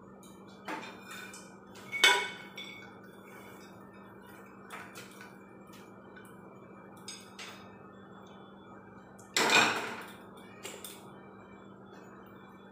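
Pots, dishes and utensils being handled: about six separate clinks and knocks, the loudest about two seconds in and a longer clatter near ten seconds, over a faint steady low hum.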